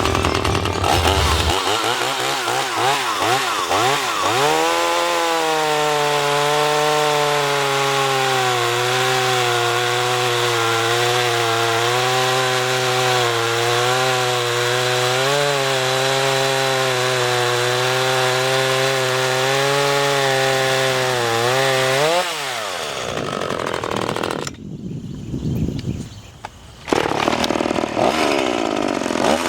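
Tanaka TCS33EB 32.1 cc two-stroke chainsaw revving up and cutting through a log at full throttle, its engine note wavering slightly under load. After about twenty seconds the pitch falls away as the throttle is released. After a brief lull the saw revs up again near the end.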